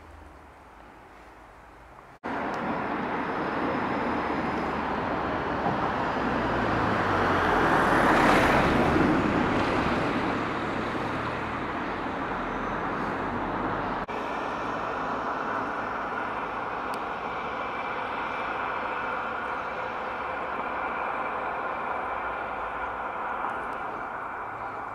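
Outdoor background noise with a vehicle passing, swelling to its loudest about eight seconds in and then fading. After an abrupt cut about fourteen seconds in, a steady hum carries on.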